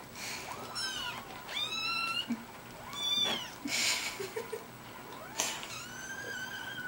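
Several young kittens mewing, thin high-pitched mews rising and falling one after another, the last one drawn out near the end. A few short breathy noise bursts come in between, the loudest about four seconds in.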